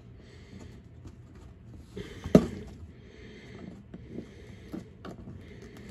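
Wire staples being worked out of holes in a cardboard box, with wires rustling against the cardboard and one sharp click a little over two seconds in.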